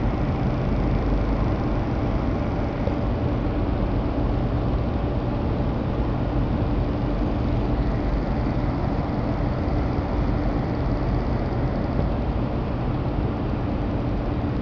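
Small model Stirling engine running steadily: a continuous mechanical whir over a low, even hum.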